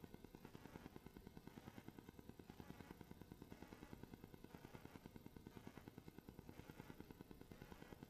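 Near silence: faint room tone with a quick, regular pulsing hum in the background.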